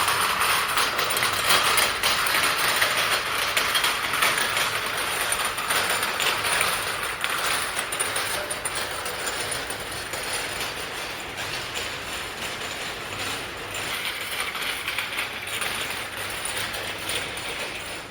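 Cough syrup bottle packing machine running: a dense, continuous mechanical clatter of many rapid small clicks, growing gradually quieter.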